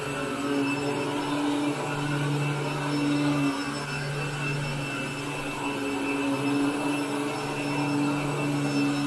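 Upright vacuum cleaner running steadily on carpet, a low motor hum with a faint high whine, its level swelling and easing slightly as it is pushed and pulled. It is pre-vacuuming, pulling dry soil out of the carpet before cleaning.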